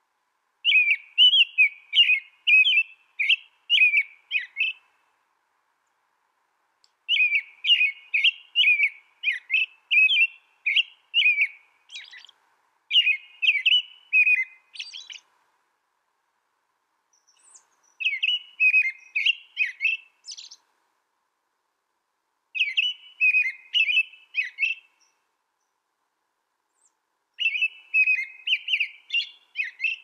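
American robin singing: bouts of short, quickly repeated warbled phrases, about two a second, broken by pauses of a few seconds between bouts.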